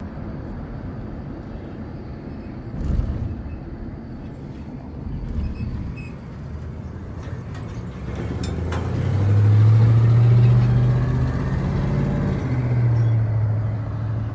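Engine running with a low, steady rumbling hum that grows louder about nine seconds in.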